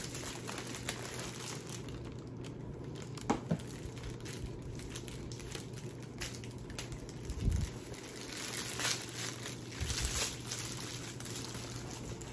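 Crinkling and rustling of packaging and a shopping tote being handled and opened, with a few soft knocks along the way.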